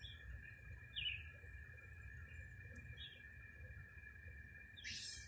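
Small birds chirping: four short, falling chirps a second or two apart, faint, over a steady high-pitched hum, with a brief rustling burst near the end.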